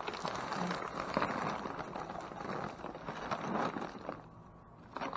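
Plastic trash bags and packaging crinkling and rustling as a gloved hand rummages through a dumpster, easing off about four seconds in.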